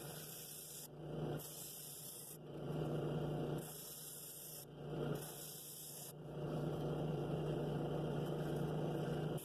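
Drill press running steadily with an inflatable sanding drum in its chuck, the sandpaper sleeve rasping against the inside of a cherry wood bowl in several stretches, the longest over the last three seconds.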